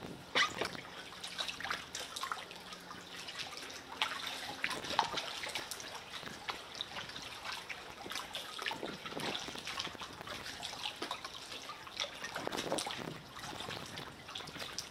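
Kayak paddling, with water dripping and trickling off the paddle blades in small, irregular splashes.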